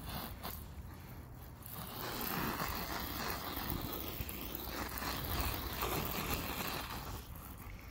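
Hand-pump pressure sprayer hissing as it puts a fine spray onto a canvas boat spray hood. The spraying starts about two seconds in and stops shortly before the end.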